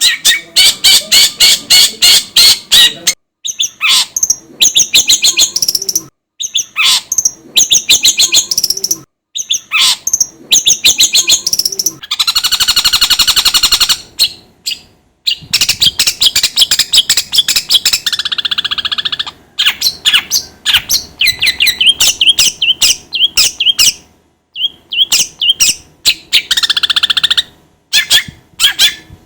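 Long-tailed shrike (cendet) singing loudly: rapid chattering runs of sharp notes broken by short pauses, with two harsh rasping stretches around the middle.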